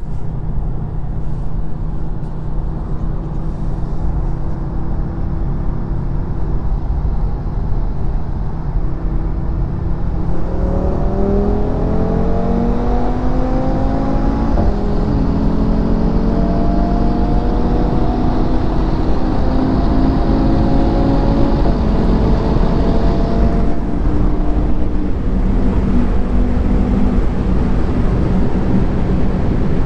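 A sports-car engine pulling hard at high speed, heard from inside a car's cabin over heavy wind and road roar. After a steady stretch, the engine note climbs in pitch from about a third of the way in, with a dip at each upshift, then settles back into wind and road noise near the end.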